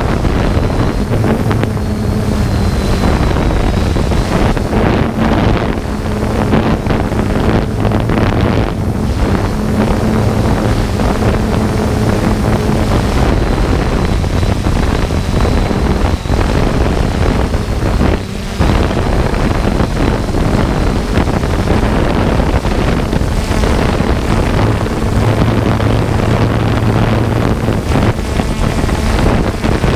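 3DR Solo quadcopter's motors and propellers running steadily, with a low hum that fades in and out and a faint high whine. Wind rushes over the microphone of the camera slung beneath the drone.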